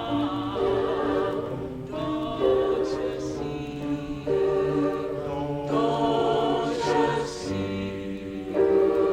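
High school choir singing in harmony, holding chords that change every second or two.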